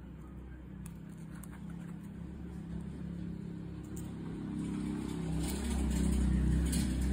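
A motor vehicle engine running, a low steady hum that grows louder over the last few seconds. A few faint clicks from handling the phone's display parts.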